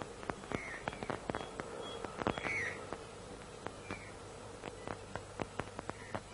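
A cart rolling along with irregular clicks and knocks and a short squeak about every two seconds.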